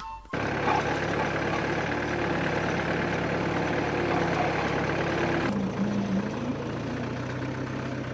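Tractor engine running steadily while pulling a chisel plough through the field. About five and a half seconds in, the sound shifts to a slightly quieter, different engine note.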